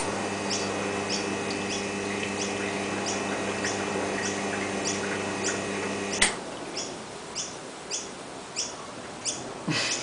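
Restored two-group Rancilio espresso machine's pump switched on with a click and running with a steady hum for about six seconds while the second group is tried, then switched off with a click. Short high chirps repeat about twice a second throughout.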